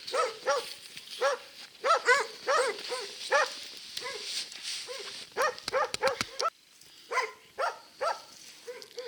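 Hunting dog barking over and over, about two barks a second, baying at a brown bear in its den: the sign that the dog has found the bear. A few sharp clicks come about two-thirds of the way through.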